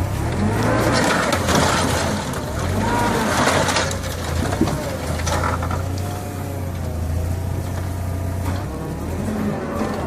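A heavy construction machine's engine running with a steady low hum.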